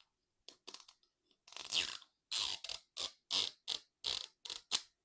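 Crinkly plastic toy packaging being handled and opened: a quick run of short crackling scrapes, about two to three a second.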